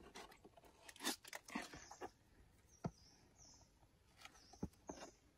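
Dry leaves and twigs crackling and snapping in scattered sharp clicks as someone moves through forest undergrowth.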